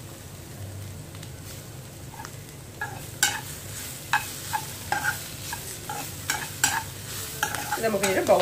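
A steel spoon stirring strips of snake gourd frying in a nonstick pan, over a light steady sizzle. From about three seconds in the spoon clinks and scrapes against the pan again and again, getting busier near the end.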